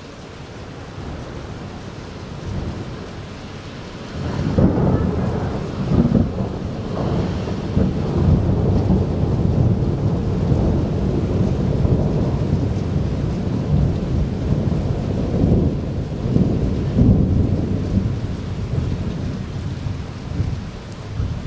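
Thunder from a lightning strike about 2 km away, with rain falling. A low rumble builds, then about four seconds in loud cracks break out, and the thunder rolls on in swells for over fifteen seconds, easing near the end.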